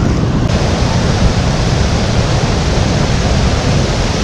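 Fast-flowing river water rushing over rocks: a loud, steady rush with a deep rumble, turning brighter and fuller about half a second in.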